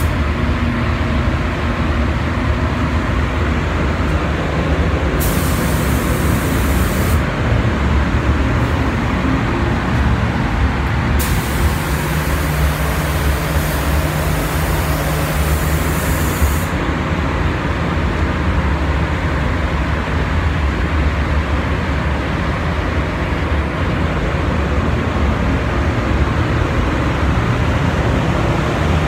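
Paint booth ventilation fans running with a steady rushing drone. A spray gun's compressed-air hiss comes in twice, about five to seven seconds in and again from about eleven to seventeen seconds in.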